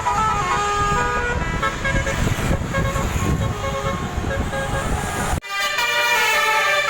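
Bus 'telolet' horn playing a tune of quick stepped notes over the rumble of the passing bus. The sound drops out abruptly for an instant about five and a half seconds in, then the horn notes carry on.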